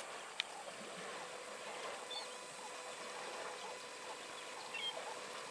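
Quiet outdoor ambience with a faint steady hiss and a few short high chirps from birds, one about two seconds in and another near five seconds.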